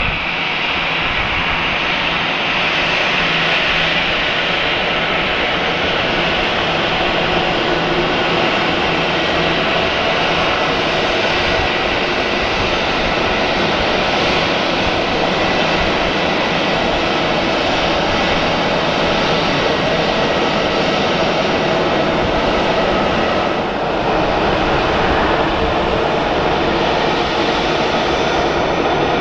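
Airbus A320-214's CFM56-5B jet engines running at low power as the airliner taxis close by: a steady whine over an even rushing noise.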